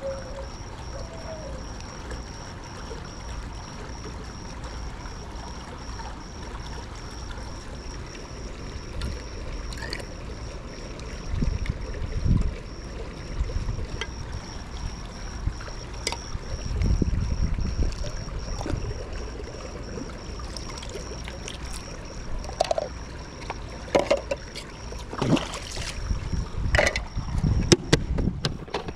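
Pool water splashing and trickling, with wind gusting on the microphone twice and a faint steady high tone. Several sharp knocks come near the end.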